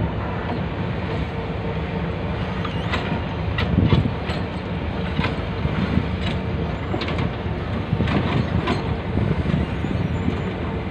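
Heavy diesel dump truck engines running at low speed as the trucks creep past in a line, a steady low rumble. Scattered sharp clicks and rattles come through the middle few seconds.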